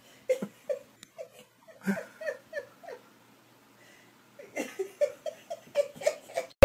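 A person giggling in two bouts of short, rhythmic laughs, about three a second, with a pause between them.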